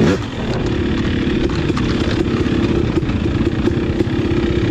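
Husqvarna TC250 single-cylinder two-stroke dirt bike engine. Its revs drop quickly right at the start, then it holds a steady, even note at part throttle.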